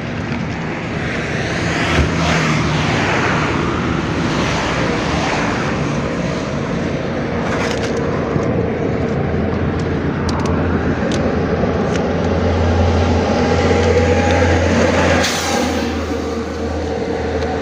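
Road traffic passing close by: cars swell and fade one after another. A heavier vehicle's low engine hum grows louder toward the end, and there are a few light clicks in the middle.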